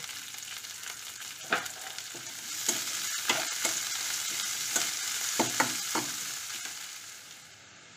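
Sliced onion sizzling in hot oil in a metal kadai, with a metal spatula scraping and tapping against the pan several times as it is stirred. The sizzle dies down near the end.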